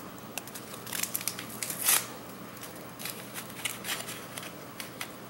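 Foil-lined Taster's Choice instant coffee packet crinkling and being torn open: a run of small crackles with a sharper rip about two seconds in.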